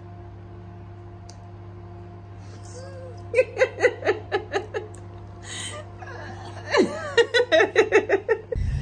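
Laughter in two runs of quick, repeated ha-ha pulses, the first about three and a half seconds in and the second near the end, with a breathy exhale between them, over a faint steady hum.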